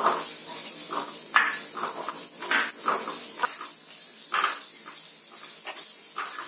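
A spatula stirring and scraping through onions, cashews and garlic sautéing in oil in a nonstick frying pan: a steady light sizzle with irregular scrapes and taps on the pan.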